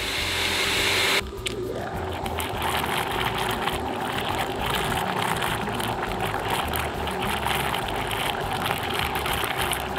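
Countertop blender running at full speed, blending a fruit, yogurt and ice smoothie that is already smooth and swirling in a vortex. The sound changes abruptly about a second in, then runs steadily.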